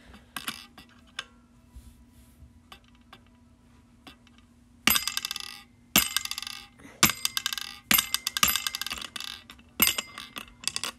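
Small red mallet tapping the lever of a mini desktop strongman toy: a few light taps at first, then from about five seconds in six or seven harder hits, each sending the bead up to strike the golden bell on top with a metallic ring that dies away.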